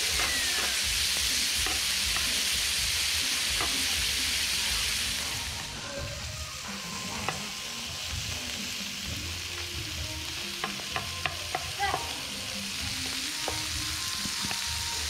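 Beef slices sizzling in margarine on a flat griddle pan. About five seconds in, the loud sizzle drops to a quieter hiss, and a quick run of sharp clicks follows a little past the middle.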